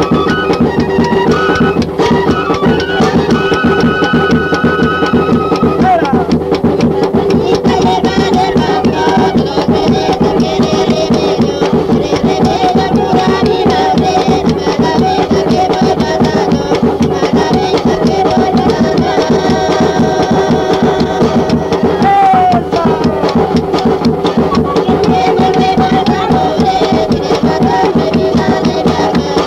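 Recorded folk song played by a band, with drums and percussion keeping a steady beat. Held high melody notes in the first few seconds give way to a wavering melody line.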